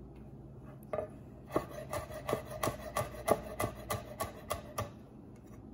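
Chef's knife chopping garlic on a wooden cutting board: one knock about a second in, then a run of steady chops about three a second that stops near the end.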